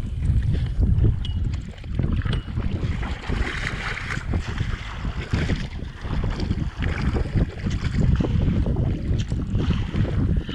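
Wind buffeting the microphone in gusts, with water splashing and slapping against the hull of an inflatable boat as it is rowed into the wind.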